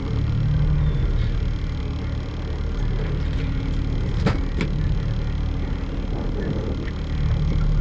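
Fishing boat's engine running with a steady low rumble, with two sharp clicks a third of a second apart just past four seconds in.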